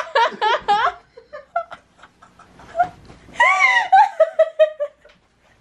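Laughter: a quick run of laughs, then, after a quieter stretch, another loud burst of laughter about three and a half seconds in that tails off in short pulses.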